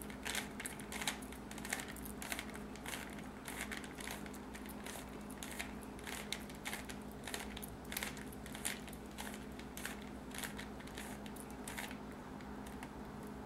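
Rubik's Cube being scrambled by hand: the plastic layers are twisted in quick succession, making a run of small irregular clicks, a few a second, that stop about a second before the end.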